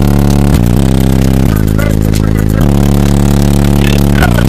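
Very loud bass-heavy music pounding from a wall of 24 Alpine Type R 10-inch subwoofers driven by eight Rockford Fosgate 2500.1 amplifiers. The deep sustained bass notes change pitch about once a second.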